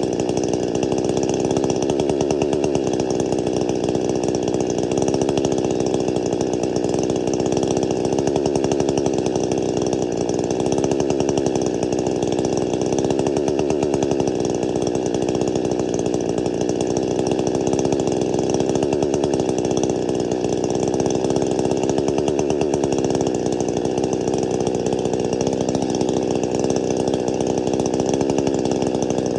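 Stihl MS261C two-stroke chainsaw with a modified muffler, freshly assembled, idling steadily on its own.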